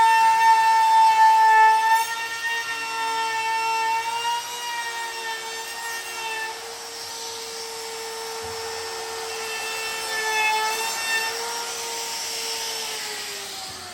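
Handheld wood router running at high speed with a round-over bit, a steady high whine with cutting noise as it works the bench edge, then switched off and winding down near the end.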